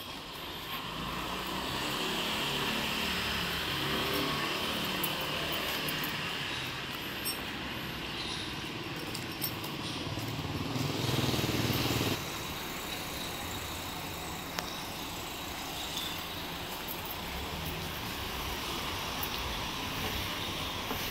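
Street sound with a motor vehicle engine running close by. The engine grows louder from about two seconds in and cuts off abruptly about twelve seconds in, after which a quieter, steady traffic hum continues.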